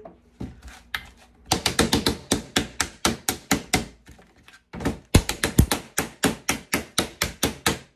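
Metal spoon tapping rapidly on a silicone tablet mold in a plastic tub, about five sharp taps a second, in two runs with a short pause in the middle.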